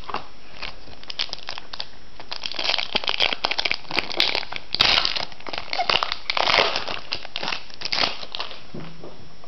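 Foil booster pack wrapper crinkling and tearing as a trading card pack is opened, in irregular crackly bursts for several seconds.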